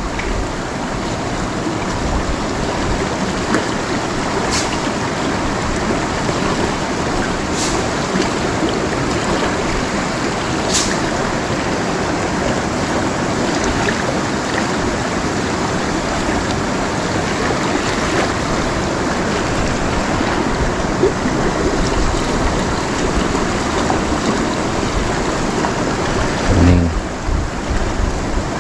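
Shallow river running fast over rocks and riffles: a steady rushing of water with a few faint high ticks in the first half. A short, low vocal sound comes near the end.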